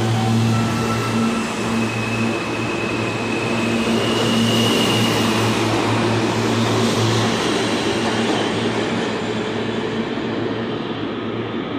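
R160 New York City subway train pulling out of the station. Its traction motors give a high whine that climbs in pitch over the first few seconds, above a steady hum and the rushing rumble of the cars on the rails, which swells and then fades as the last car leaves.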